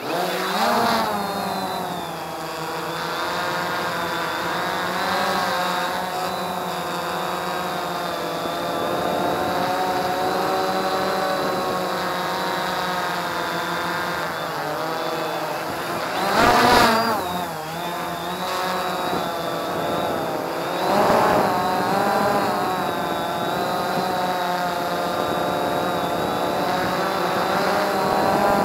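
Quanum Nova quadcopter's brushless motors and propellers whining as they spin up and fly, heard through the craft's onboard camera. The pitch wavers steadily as the throttle is worked, surging louder and higher twice in the second half.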